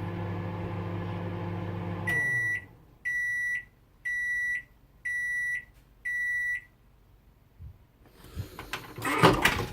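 Microwave oven running with a steady hum, then shutting off about two seconds in and sounding five evenly spaced high beeps, about one a second, to signal the end of its cooking cycle. Near the end comes a loud clunk and rattle.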